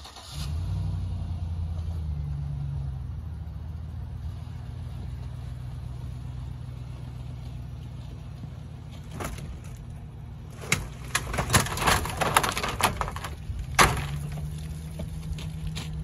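Pickup truck engine running steadily as it pulls on a tow strap. About nine seconds in, a run of metal clanks, rattles and scraping sounds as the engine is ripped out of the other truck's engine bay, ending in one loud knock near the end. The engine then runs steadily again.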